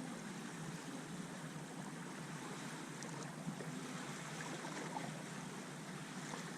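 Steady wind and water noise by the sea, with a few faint ticks.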